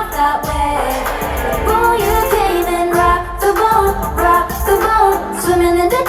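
A female pop group sings live over a loud backing track with a deep, pulsing bass beat, heard through an arena sound system.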